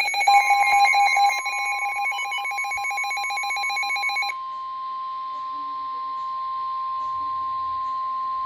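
NOAA Weather Radio 1050 Hz warning alarm tone: one steady, loud electronic tone that signals a severe thunderstorm warning is about to be read. For about the first four seconds a rapid electronic beeping alarm sounds over it, then stops abruptly.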